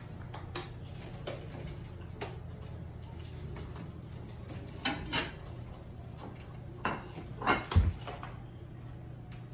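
A cat's claws clicking and tapping on a door screen as it clings and climbs, in scattered sharp taps with a louder knock near the end, over a steady low hum.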